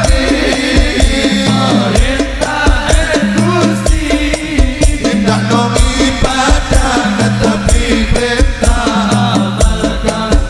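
Sholawat devotional music with dense percussion and a heavy, boosted bass line under a wavering melody.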